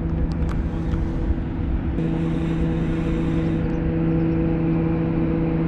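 An engine running at a steady speed, a constant hum over a low rumble that gets a little stronger about two seconds in, with a few faint clicks in the first second.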